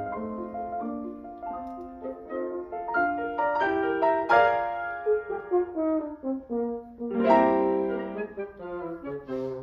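Symphony orchestra and solo grand piano playing a classical concerto passage live, with several lines of held and stepping notes overlapping.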